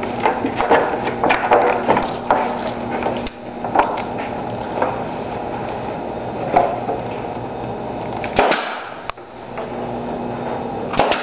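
Foil-and-tape tunnel sections and wooden rails being handled, with dense rustling and clicking over a steady hum. Near the end come a few sharp shots of a pneumatic nailer driving nails into the wooden rail.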